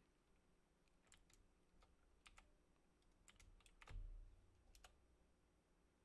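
Faint, scattered keystrokes on a computer keyboard, with a low thump about four seconds in.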